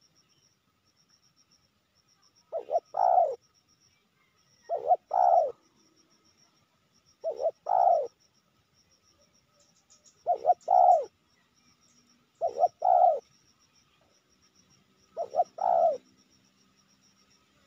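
Spotted dove cooing: six phrases about two and a half seconds apart, each two short notes followed by a longer one.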